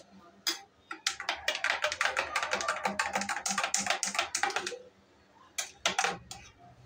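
Metal spoon stirring juice in a drinking glass, clinking rapidly against the glass for about four seconds, then a few separate taps near the end.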